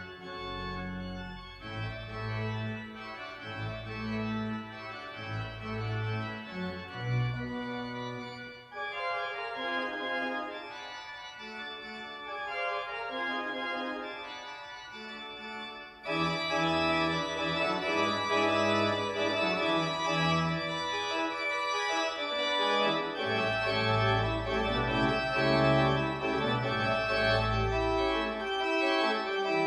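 Pipe organ playing sustained chords over held pedal notes; about halfway through it suddenly becomes louder and fuller as more sound comes in.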